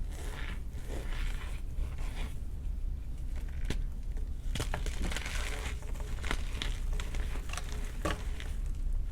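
Blocks of baked gym chalk being crushed and crumbled: an irregular series of dry crunches, with several sharp cracks as pieces snap.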